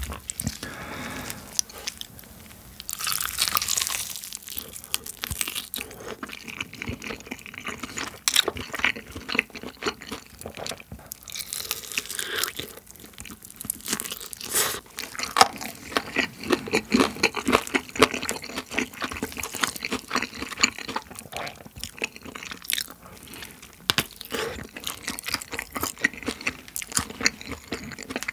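Close-miked eating of rosé-sauce fried chicken: crisp crunching bites and chewing, many sharp crunches in an irregular run.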